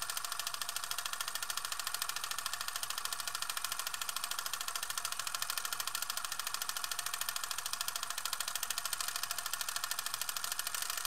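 Film projector running, a rapid, even mechanical clatter that holds steady throughout.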